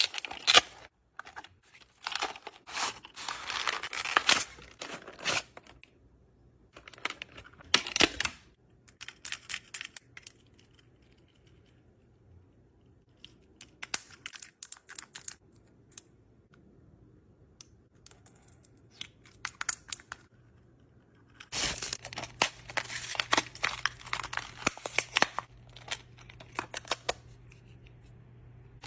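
Small cosmetic and toy packaging being handled and unwrapped close to the microphone: bursts of paper and plastic crinkling and tearing, with scattered light clicks between them. The middle stretch is quieter, with only a few clicks, before a long burst of crinkling starts about two-thirds of the way in.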